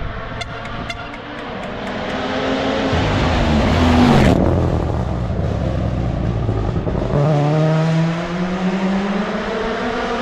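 Rally car at full speed on a tarmac stage, approaching and passing close, its engine note dropping as it goes by about four seconds in; then an engine accelerating hard, its pitch climbing from about seven seconds. A quick series of short sharp pops comes near the start.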